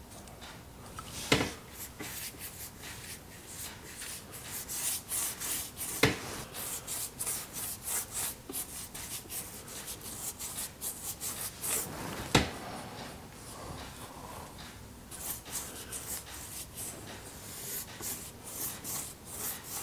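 Paintbrush stroking fresh paint over a dried drywall-compound patch, a run of quick, scratchy back-and-forth strokes with a lull near the middle, and three sharp knocks along the way.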